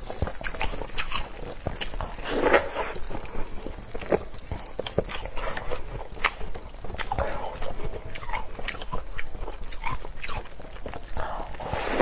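A person eating close to the microphone: bites and chewing, heard as many short clicks and crackles with a few softer, longer mouth sounds between them.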